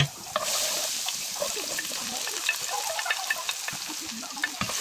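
Minced garlic and then sliced onions sizzling in hot oil in a stone-coated wok: a steady high hiss dotted with small crackling pops. A dull knock at the start and another near the end.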